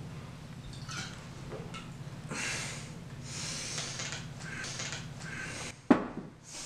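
A man gasps and exhales harshly several times after a swig of liquor straight from the bottle. Near the end a glass bottle is set down on a wooden table with a sharp knock.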